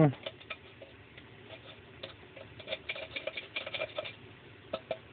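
Light irregular clicks and taps of a bulkhead connector being handled and fitted into a hole in an antenna hub, thickest in a cluster a couple of seconds in.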